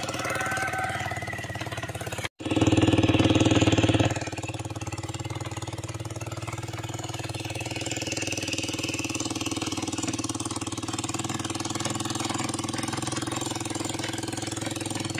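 Small engine running steadily with an even pulsing beat. It cuts out briefly about two seconds in, comes back louder for a couple of seconds, then settles to a steady level.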